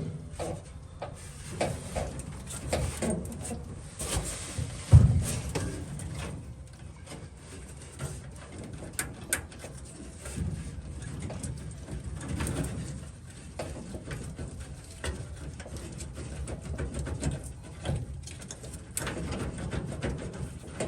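Scattered light clicks, rattles and knocks of hand work on a truck's wiring harness and firewall fittings, with one heavy thump about five seconds in.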